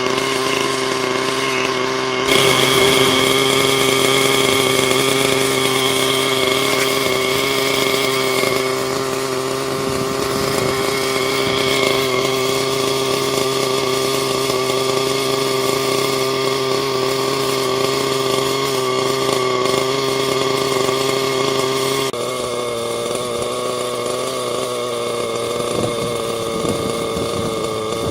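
Thunder Tiger Redline RL-53H two-stroke glow (nitro) engine of an RC helicopter running steadily during break-in with no rotor blades fitted. Its note changes abruptly about two seconds in, growing louder and brighter, and again about three-quarters of the way through, dropping slightly in level and shifting in pitch.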